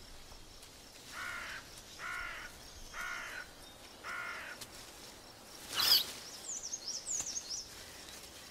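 Four short animal calls, evenly spaced about a second apart, over quiet forest background. Just before the six-second mark comes a single sharp snap, followed by a few quick high chirps from a small bird.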